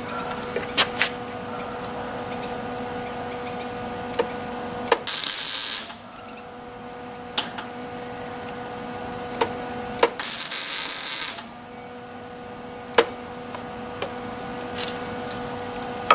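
Two short MIG tack welds on a steel pipe post, each about a second of crackling, sizzling arc, from an old Lincoln wire-feed welder. A steady electrical hum runs between them, with a few sharp clicks.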